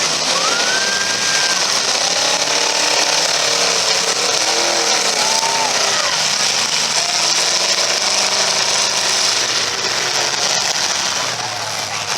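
Several demolition derby cars' engines revving hard together, their pitches rising and falling over a steady loud din.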